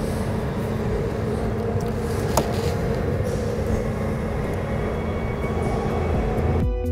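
Steady mechanical drone with a constant hum, like machinery running nearby. One sharp click about two and a half seconds in. Music starts just before the end.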